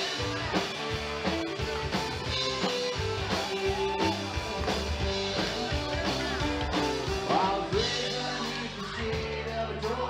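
A live band playing country rock, with drum kit, electric guitar and a bowed fiddle whose notes slide up and down.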